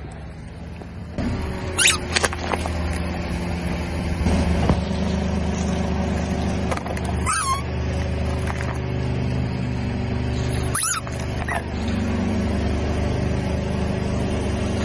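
Car engine running slowly as the car creeps forward, with a few brief sharp crunches and squeaks about 2, 7 and 11 seconds in as the tyre crushes objects on the asphalt.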